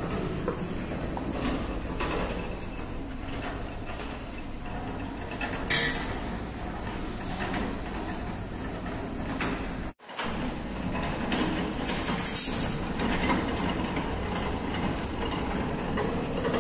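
Sheet-metal plate leveling machine running, its rollers and drive giving a steady mechanical rumble under a constant high-pitched whine. A brief louder hiss comes about six seconds in and again about twelve seconds in, and the sound cuts out for an instant about ten seconds in.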